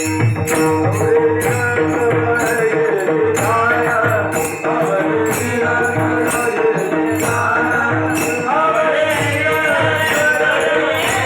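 Marathi devotional bhajan: a voice singing a bending melody over a steady held drone, with regular drum beats from a mridang and evenly spaced jingling cymbal strokes keeping the rhythm.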